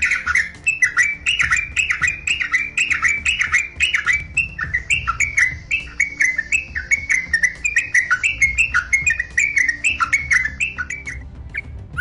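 Yellow-vented bulbul (trucukan) singing a fast, continuous run of short chattering notes, about three or four a second, which breaks off just before the end.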